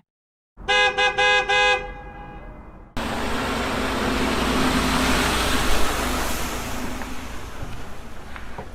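A vehicle horn toots several times in quick succession, then a steady rushing noise with a low rumble takes over about three seconds in.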